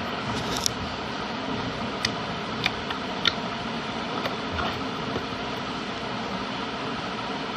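Steady rushing background noise, with about five short sharp clicks and pops in the first few seconds, typical of slime being squeezed and stretched by hand.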